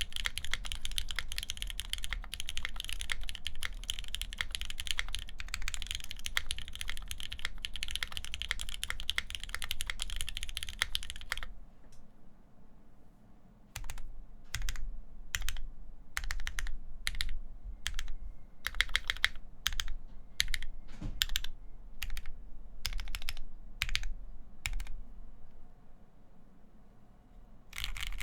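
Typing on a wilba.tech Thermal mechanical keyboard with lubed Gateron Ink linear switches in a full aluminum plate under GMK keycaps. Fast continuous typing for about eleven seconds stops, then single keystrokes and short runs of keys come at spaced intervals, and fast typing picks up again at the very end.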